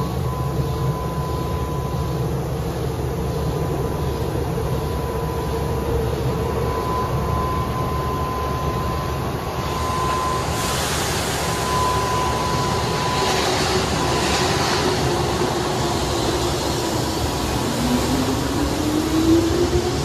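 Keihan 8000 series electric train standing at the platform, its onboard equipment giving a steady hum with a high held tone. About ten seconds in, a hiss of noise comes up. Near the end, a whine rises in pitch as the train starts to pull away.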